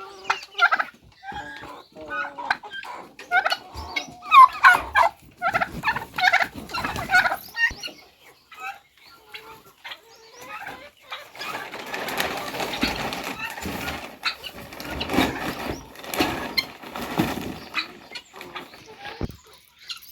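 A poultry flock of chickens and turkeys calling, with many short clucks and squawks over the first several seconds. About halfway through this gives way to a denser, noisier stretch of sound lasting several seconds.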